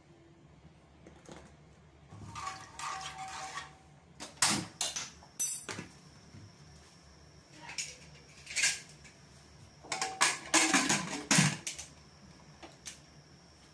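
Metal clinks and clanks from an aluminium pressure cooker being loaded and closed: a short splashing pour with a ringing note a few seconds in, then bursts of sharp clanks, with a loud cluster of knocks near the end as the lid is fitted and locked.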